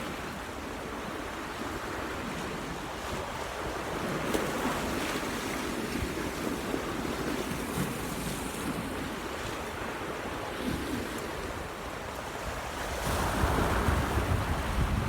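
Sea waves washing, with wind buffeting the microphone. The sound grows louder and heavier near the end.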